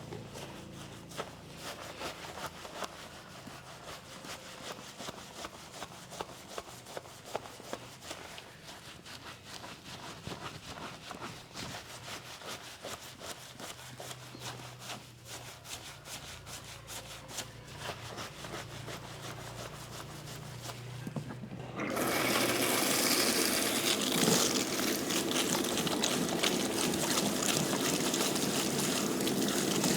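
Soft rubbing with small irregular clicks, as of hands massaging a head. About three-quarters of the way through, a spray of running water comes on suddenly and runs steadily, rinsing the hair.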